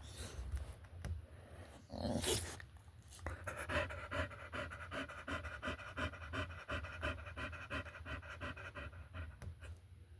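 Dog panting in quick rhythmic breaths, about four a second, with a tone carried through them, after a short loud noisy burst about two seconds in.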